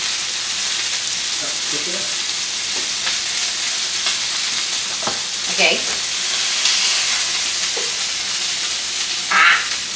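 Chicken pieces frying in hot oil in a pan: a steady sizzle.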